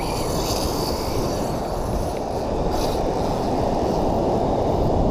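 Wind buffeting the microphone: a steady, loud low rumble with no other clear sound over it.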